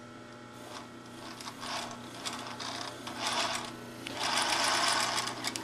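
Singer 20U industrial sewing machine, driven by its separate half-horsepower motor, stitching a zigzag in short bursts that lengthen into a steady run of about a second near the end, over a steady low hum.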